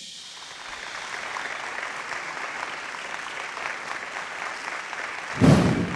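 Congregation applauding: steady clapping that builds over the first second, with a short, louder thud about five and a half seconds in.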